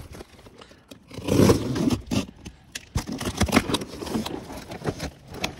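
A cardboard box being cut open with a box cutter and its flaps pulled apart: irregular scraping and tearing of cardboard and packing tape, loudest a little over a second in.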